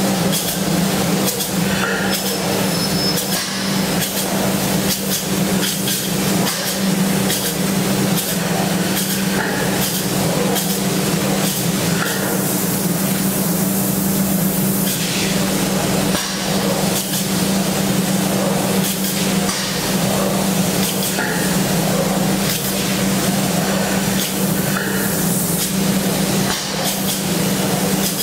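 Plural-component spray gun atomising two-part polyurea coating, a loud steady hiss of spray. Beneath it runs a steady low hum with frequent small clicks.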